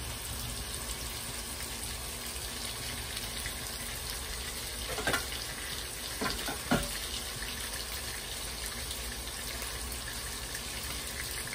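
Sliced hot dogs sizzling steadily in hot oil in a wok, with three brief louder crackles near the middle.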